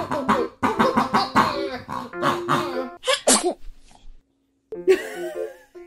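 Rubber pig squeeze toy oinking, a rapid run of rough grunts for about three seconds, then a short break and another grunt near the end.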